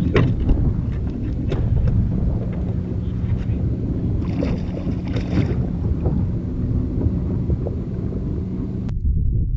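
Wind buffeting the microphone on a fishing kayak, with light clicks and knocks from the boat and gear and a low steady hum through the middle.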